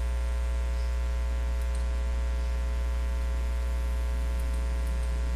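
Steady electrical mains hum with a ladder of even overtones, unchanging throughout.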